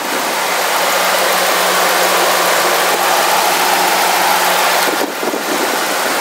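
Ford 4.6-litre Triton V8 of a 1998 Expedition idling steadily with the hood open; a smooth-running motor.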